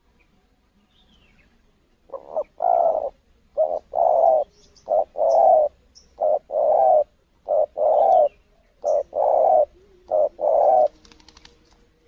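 Spotted dove cooing: a run of about seven two-note coos, each a short note followed by a longer one. The run starts about two seconds in and stops near the end.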